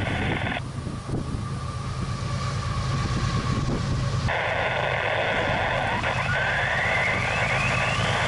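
Approaching CSX diesel freight locomotive, its engine a steady low rumble growing louder, sounding its multi-tone air horn: one blast cuts off about half a second in, and a long blast starts about four seconds in and holds.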